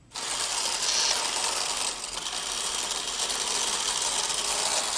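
Spring-driven wooden clockwork of a karakuri archer doll (yumi-hiki dōji) running, a steady, rapid clatter of its gear train.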